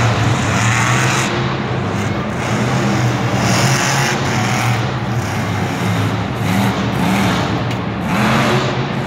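Monster truck engine revving hard in repeated surges, its pitch rising and falling as the truck spins its tyres in the dirt and turns.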